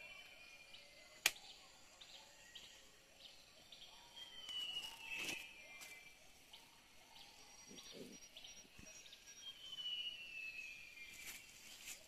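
Birds calling: two long whistled phrases that fall in pitch, one about four seconds in and another near ten seconds, with short chirps between. A single sharp click comes a little over a second in.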